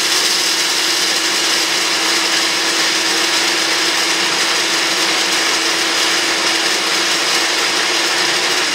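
Countertop blender motor running steadily at full speed, grinding dry sorghum grain (tieng): a constant whirring hum with a dense rattling hiss of grain above it.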